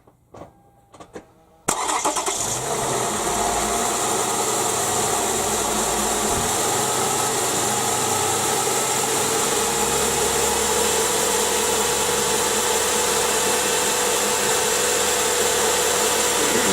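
Toyota Sienna's 3.5-litre V6 engine started: a few faint clicks, then under two seconds in it catches suddenly and settles into a steady idle.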